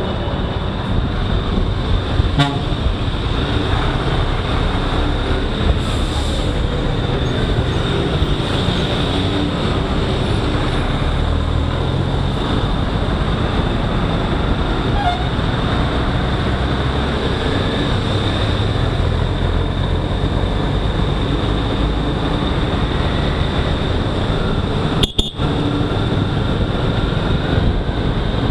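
Motorcycle riding in slow, heavy truck traffic: a steady low rumble of engine and road noise.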